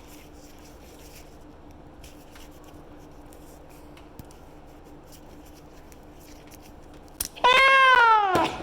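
A cat meows once near the end, a single long call that arches and falls in pitch, over a faint steady hum.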